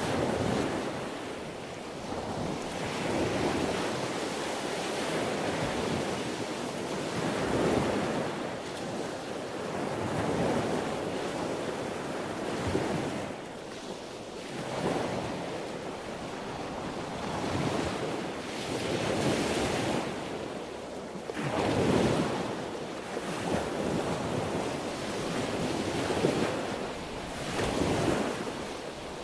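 Sea waves breaking and washing in, a steady rush of surf that swells and eases every few seconds.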